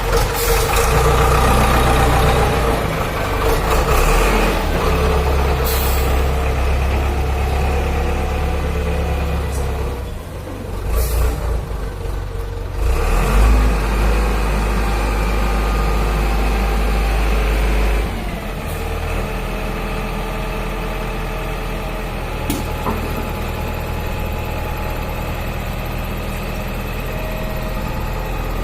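The four-cylinder inline diesel engine of a 2013 Xiandai XD926G wheel loader running. Its note shifts up and down through the first half, then settles to a steady idle a little past halfway.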